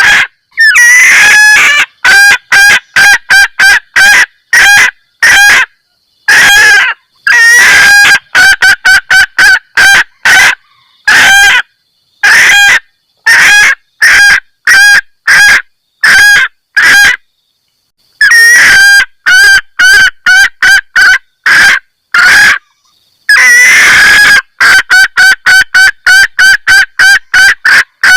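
Female junglefowl's 'kekkek' mating call: runs of short, sharp clucking notes at a few per second, broken by a few longer drawn-out calls and short pauses. It is the hen call used as a lure to draw in males.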